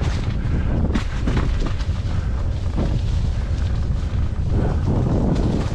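Heavy wind buffeting the microphone, a loud steady low rumble with a few brief knocks, as from a camera moving quickly down a mountain trail.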